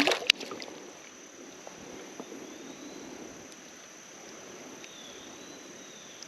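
Creekside ambience: a steady wash of running stream water with a thin, steady high insect tone and faint high chirps, and a few sharp clicks right at the start.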